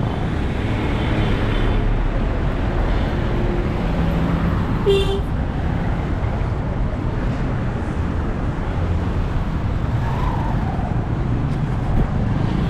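Busy city road traffic: a steady rumble of car and bus engines and tyres, with a short toot about five seconds in.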